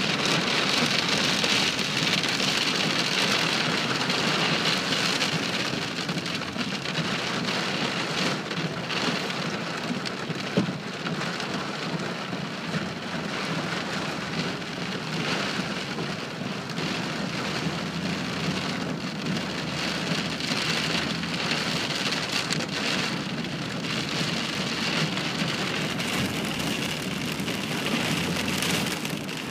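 Heavy rain pelting a car's windshield and roof, heard from inside the moving car as a dense, steady patter, louder for the first five seconds or so. One sharp knock comes about ten seconds in.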